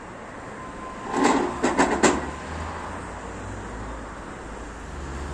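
About four sharp clanks in quick succession, about a second in, from the manual sheet-metal bending machine being handled, followed by a low steady hum.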